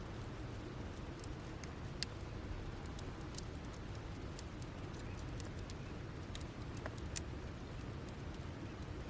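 Campfire burned down to embers, crackling with scattered sharp pops, the loudest about two seconds in and near seven seconds, over a steady low rumble.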